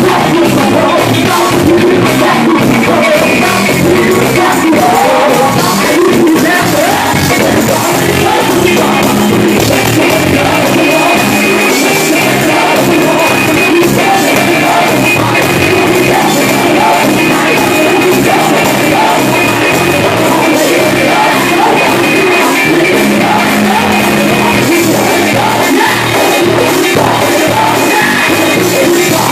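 Live gospel band in a church: a male lead singer singing into a microphone over electric guitar and drums, loud and continuous.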